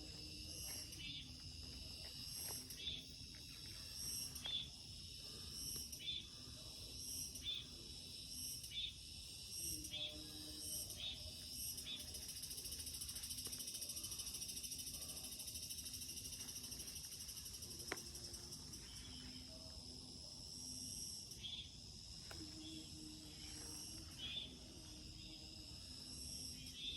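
Insects trilling steadily in a forest, a high continuous chorus that swells for several seconds midway. A short chirp repeats over it about once a second.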